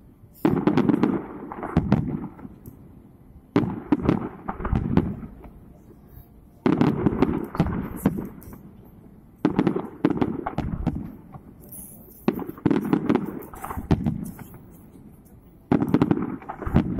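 Aerial fireworks display: volleys of shell bursts, booming and crackling, with a new cluster of bangs about every three seconds, six in all.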